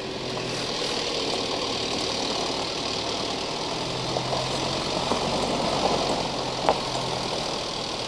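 A motor vehicle's engine running steadily as it approaches along a dirt track.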